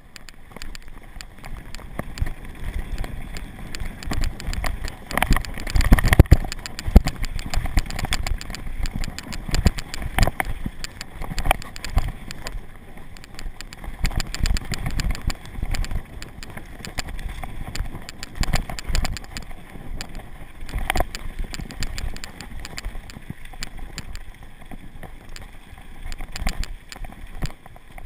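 Mountain bike riding fast down a dirt and gravel downhill trail: tyres rolling over loose dirt and rocks under a steady rumble of wind on the microphone, with frequent knocks and rattles from the bike over bumps, heaviest about five to seven seconds in.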